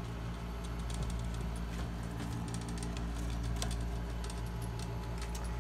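Fast, irregular light clicking and scratching over a steady low hum.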